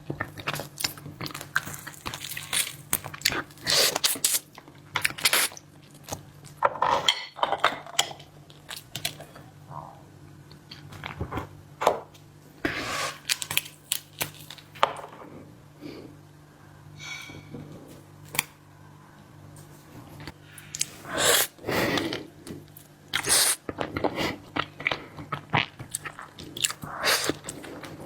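Close-up mukbang eating sounds: a person biting and chewing seafood, with irregular crunches and wet chewing, pausing briefly now and then.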